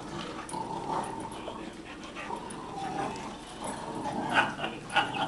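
Dogs vocalizing while they play tug-of-war over a rope toy, with a few short, sharper calls about four and five seconds in.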